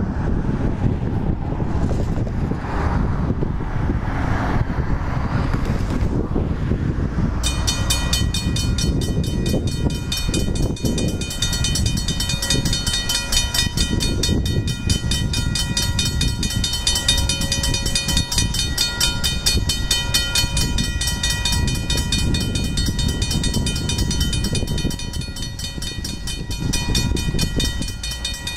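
Standard railcar RM31 approaching on the track, its engine giving a steady low rumble. From about seven seconds in, a steady high-pitched whine made of several tones starts abruptly and goes on over the rumble.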